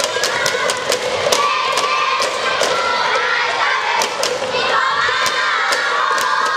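Many young voices shouting and chanting cheers together at a school volleyball match, cut through by sharp, irregular percussive beats.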